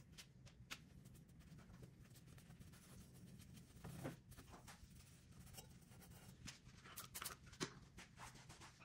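Faint rubbing and swishing of a microfiber cloth polishing a steel exhaust muffler, with scattered light clicks and scuffs.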